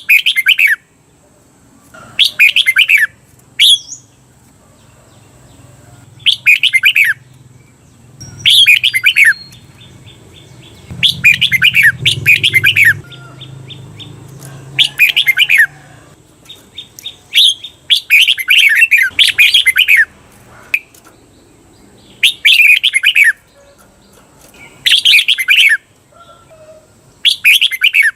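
Red-whiskered bulbul singing loud, short whistled phrases about every two seconds, several of them given twice in quick succession: the 'double' song style that this track is meant to teach caged bulbuls.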